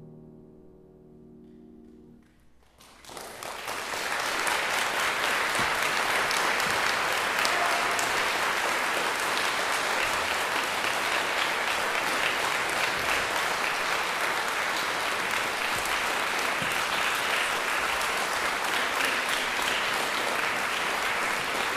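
The grand piano's final chord fades away, and about three seconds in the audience breaks into steady applause that continues without a break.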